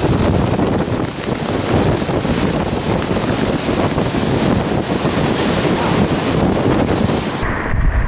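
Strong wind buffeting the microphone: a steady, loud rushing noise. It changes abruptly about seven seconds in but keeps going.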